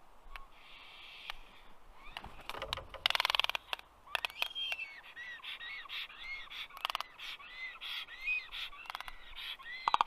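Common raven making its clicking, knocking calls: sharp single clicks and bursts of rapid dry clicks run together into a rattle, loudest about three seconds in.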